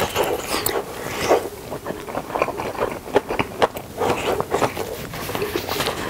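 Close-miked chewing of kimchi cheese tangsuyuk (batter-fried pork in sauce with melted cheese), with irregular crunches and clicks.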